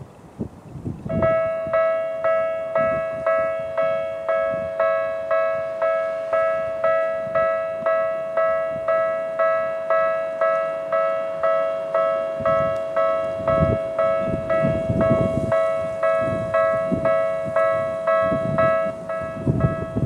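Japanese level-crossing electronic warning bell of the Tokyu type, starting about a second in and ringing a steady, evenly repeated ding at about two strikes a second. It signals a train approaching as the barriers come down. Low wind rumble on the microphone runs beneath it.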